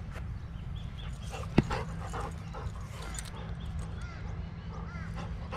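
Labrador retriever working a scent track gives a short, sharp yip about one and a half seconds in, with brief whimpering sounds around it, over a steady low rumble.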